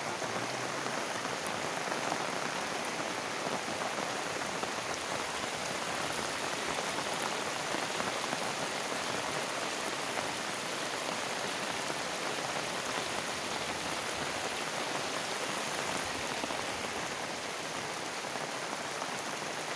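Heavy rain falling steadily, an even hiss of drops hitting surfaces.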